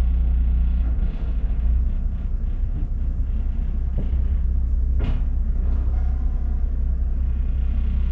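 Boat engine running steadily, its sound mostly low, while another boat is pushed alongside a grid; a single sharp knock about five seconds in.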